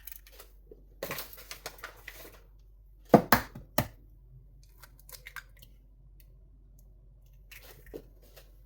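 Eggs being cracked open by hand: a few sharp cracks of shell, the loudest a little over three seconds in, with lighter crackling and clicks around them.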